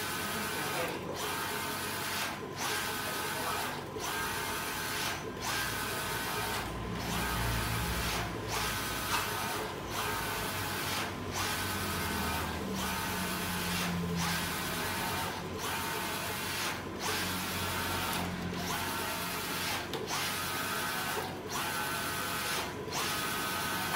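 Mimaki JV33 wide-format inkjet printer printing a vinyl decal: the print-head carriage shuttles across the media with a steady motor whine and hiss. The sound dips briefly about every one and a half seconds as the carriage turns at each end of its pass.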